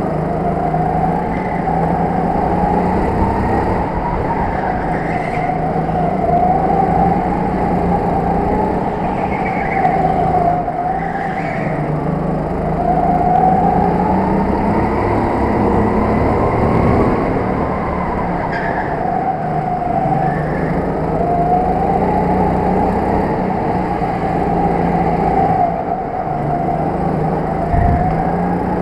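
Go-kart heard from onboard while lapping an indoor track: the motor runs continuously, its pitch rising and falling in slow swells every few seconds as it speeds up on the straights and slows for the corners, over a steady low rumble.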